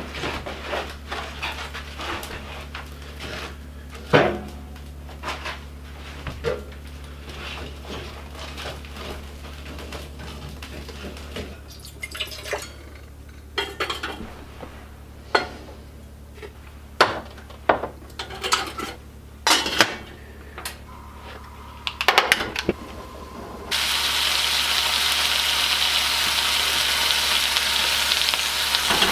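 Pans and utensils clinking and knocking in a kitchen, each a separate sharp clatter, over a steady low hum. About 24 seconds in, a loud steady sizzle starts all at once as food hits a hot pan and begins frying.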